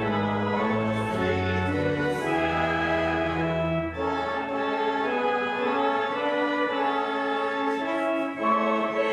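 Church organ playing slow, held chords, with a low pedal bass line that drops out about halfway through.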